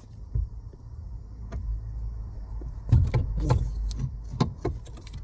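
Hand tools and metal parts being handled while working on a car's electric power steering assist motor: a low rumble, then from about three seconds in a quick, uneven run of sharp clicks and knocks.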